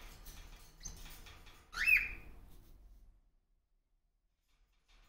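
A pet parrot gives one short whistled call that slides up and then holds, about two seconds in, after a few faint clicks. About three seconds in, the sound cuts to dead silence.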